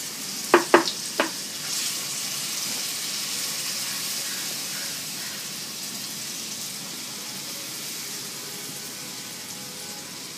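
Rice-and-urad-dal batter sizzling on a hot, oiled flat pan, a steady hiss that eases slightly toward the end. About half a second in come three sharp knocks in quick succession.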